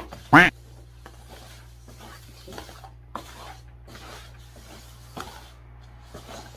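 Paper cups being slid and knocked about on a smooth tabletop as they are shuffled, with one loud short scrape about half a second in and light taps and rubs after it.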